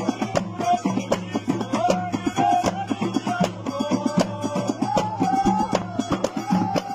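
Moroccan Hmada folk music: a group of bendir frame drums struck in a steady, driving rhythm, with a wavering melody line above it.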